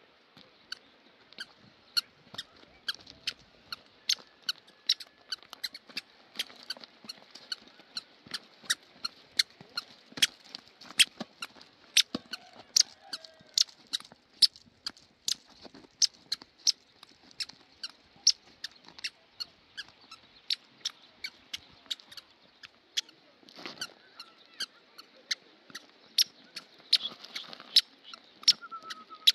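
A long run of short, sharp squeaks, about two to three a second.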